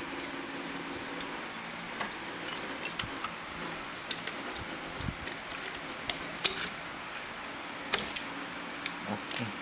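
Scattered small clicks and knocks of computer parts being handled as a CPU heatsink and fan are taken off the motherboard, over a steady hum. The sharpest knocks come about eight seconds in.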